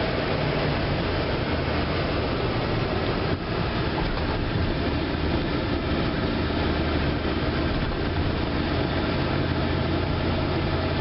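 Steady road and engine noise heard from inside a moving car: an even rumble with a low hum.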